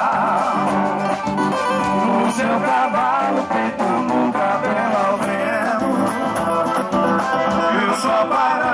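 Music: a song with singing and guitars.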